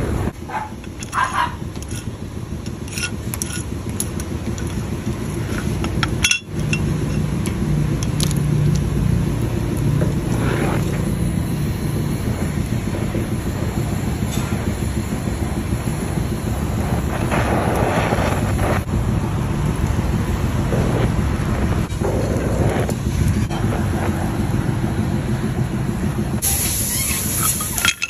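Oxy-acetylene torch flame burning with a steady roar while it heats carbide tips for copper brazing onto a steel disc, with a few light clicks and taps. A sharper hiss comes near the end.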